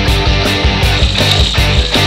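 Rock music with a steady, driving drum beat.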